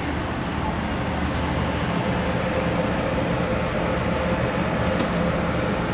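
Steady hum and noise of RTD light rail trains standing at a station platform. A faint steady tone joins about two seconds in, and there is a sharp click near the end.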